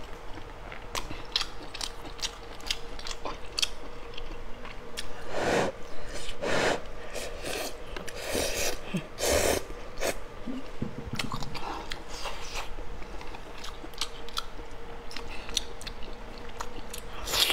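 Close-miked eating: wet chewing and biting of braised pork intestine rings, with many small mouth clicks. Several louder slurps of noodles come in the middle.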